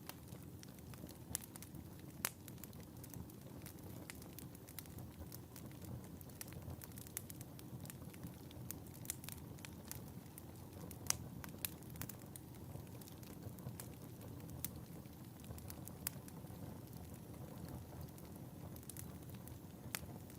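Wood fire burning in a fireplace: a steady low rumble of flames with frequent sharp, irregular crackles and pops, a few of them louder than the rest.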